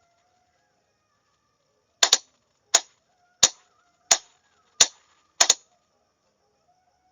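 Morse code groups being sent as sharp clicks: eight clicks starting about two seconds in, roughly one every two-thirds of a second, two of them doubled in quick pairs.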